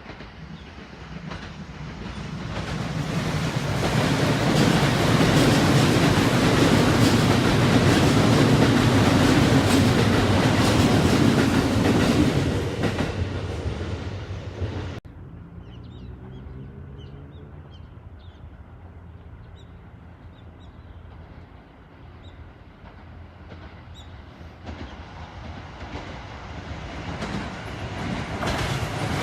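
Kintetsu Nara Line electric train passing close by, its wheels clattering on the rails, building up over a few seconds and then fading. After a sudden cut about halfway, another train approaches, growing louder near the end.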